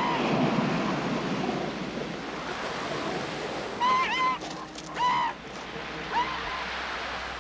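Surf washing, with a northern elephant seal pup giving three short high-pitched cries from about halfway through.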